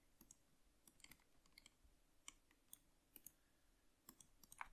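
Near silence with about ten faint, scattered clicks from a computer mouse and keyboard.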